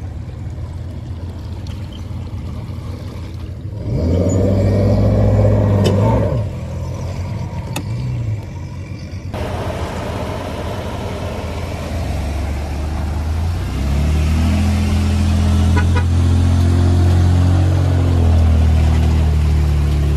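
An engine running, revving up sharply about four seconds in and easing back about two seconds later, then running steadily and climbing in pitch again through the second half.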